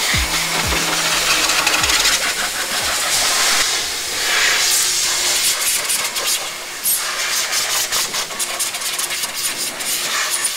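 Shop vacuum hose sucking air in a car's engine bay: a steady hiss with many small clicks and rattles of debris, and a few quick falling low tones in the first two seconds.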